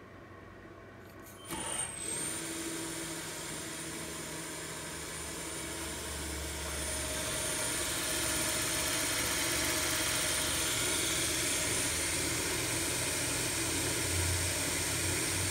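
The Grizzly G0704 CNC mill's VFD-driven spindle starts about a second and a half in with a sudden click and a brief high gliding whine. It grows louder over the next several seconds, then runs steadily.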